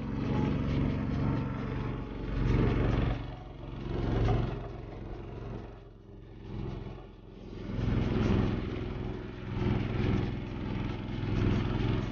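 Motor of a narrow wooden river boat running steadily under way, under a loud rushing noise of wind and water that swells and fades every second or two.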